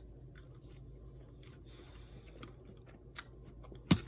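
A person quietly chewing a bite of taco with ground-pecan filling, with small mouth clicks. A sharp loud knock comes near the end.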